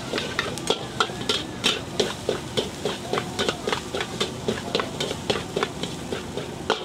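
Metal ladle and spatula clanking and scraping against a steel wok, about three strikes a second, over the steady sizzle of kuey teow being stir-fried.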